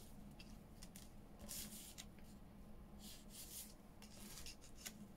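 Faint rustles and light clicks of paper pieces being handled and shuffled on a work surface, a few short soft scrapes among scattered ticks, over a low room hum.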